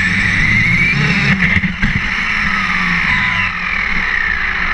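Onboard sound of a 1/10-scale RedCat RC monster truck driving on asphalt: the motor whines over the tyre and road rumble. A few sharp knocks come about a second and a half in, and the whine falls in pitch near the end as the truck slows into a turn.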